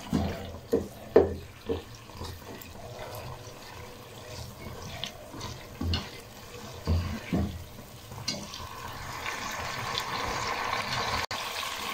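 Chicken in a thick masala bubbling and sizzling in a pot on the stove while a slotted spatula stirs it, with scattered scrapes and knocks of the spatula against the pot. The bubbling grows steadier over the last few seconds.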